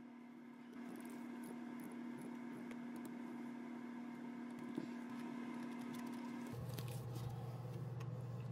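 Hand ratchet with an extension and spark plug socket clicking in short, irregular runs as it loosens an old spark plug. Underneath is a steady low hum that drops to a lower pitch about two-thirds of the way in.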